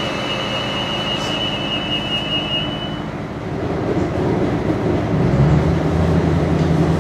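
Steady running rumble inside a moving Adelaide Metro diesel railcar. A thin, high, steady tone stops about three seconds in, and a low drone comes in and grows louder about five seconds in.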